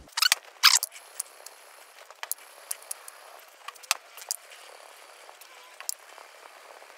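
Two short hisses of a WD-40 aerosol can sprayed onto lapping film within the first second. Scattered light clicks and taps follow as a steel honing guide holding a plane iron is handled and set down on the film-covered glass plate.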